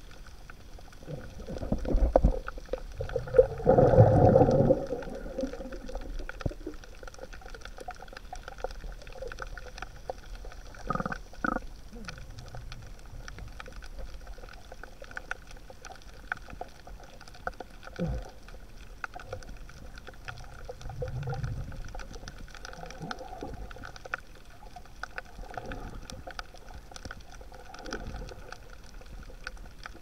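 Underwater sound picked up by an action camera in its housing: water moving around the camera, swelling louder for a few seconds near the start, with a few sharp knocks later on.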